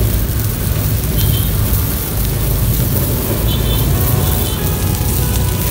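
Whole puyo (climbing perch) sizzling on a metal plate over a crackling wood fire, under a loud steady low rumble.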